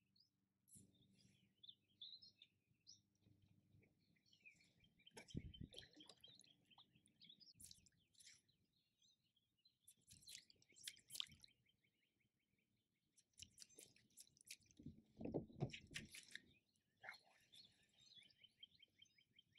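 Faint birds chirping in the background, with a few soft low knocks about five seconds in and again near three-quarters of the way through.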